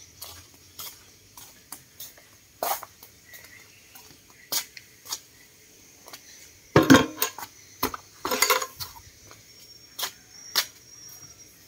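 Scattered metallic clinks and knocks from water-pump parts being handled and set down, with two louder clattering clanks a little past the middle.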